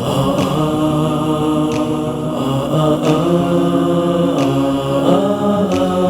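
Outro music: a chanted vocal melody on long held notes that glide between pitches.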